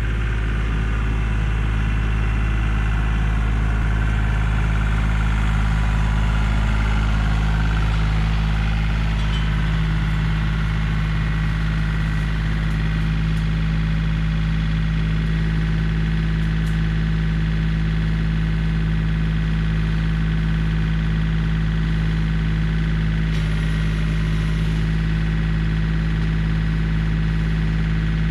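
Yanmar compact diesel tractor engine running steadily at a constant speed.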